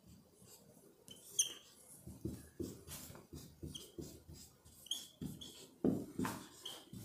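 Faint writing on a board: a run of short scratchy strokes with brief high-pitched squeaks, starting about a second in.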